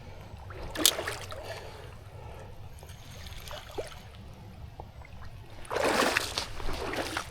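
River water trickling steadily, with two brief scuffling, splashing bursts of someone moving at the water's edge: a short one about a second in and a longer one near the end.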